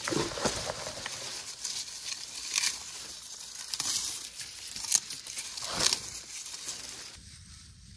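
Dry dead leaves and twigs rustling and crackling as a hand pulls through a leafy shrub, with a few sharper cracks of twigs. The rustling stops abruptly about a second before the end, leaving a quieter background.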